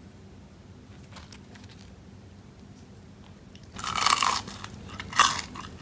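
Crunching of a crisp, deep-fried battered egg crust: a few faint crackles, then several loud crunches starting about four seconds in.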